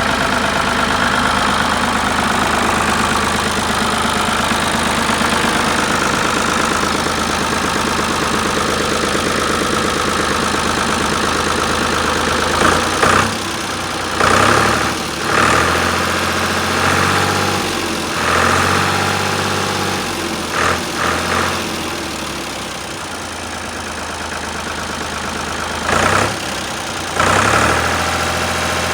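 Ford tractor engine running steadily at idle. From about halfway through, the engine speed changes several times, with short rises in loudness.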